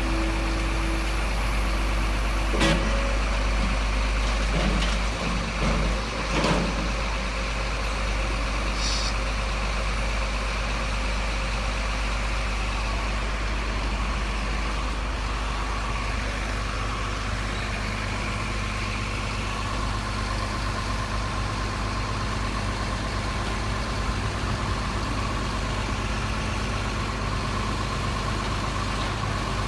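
Steady engine idle from a radio-controlled Mercedes Arocs 8x8 model truck, with a few sharp knocks in the first seven seconds.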